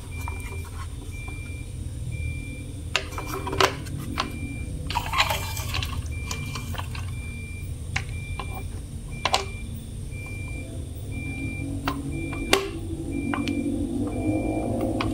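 Hands tipping and handling a plastic toy dump truck: scattered sharp plastic clicks and knocks, a brief scrape about five seconds in and some rubbing near the end. A faint high beep repeats about twice a second throughout.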